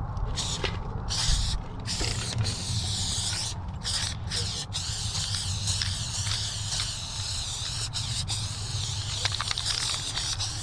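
Aerosol spray can spraying paint onto a rough concrete wall in hissing passes, stopping briefly several times in the first half, then spraying without a break from about five seconds in. A low rumble runs underneath.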